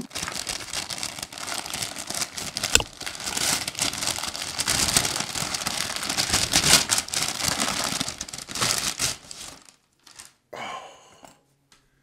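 Kraft-paper wrapping of a wax-sealed package being torn open and crumpled, crackling without a break for about nine and a half seconds, with one sharp snap a little under three seconds in. It then stops, apart from one short rustle near the end.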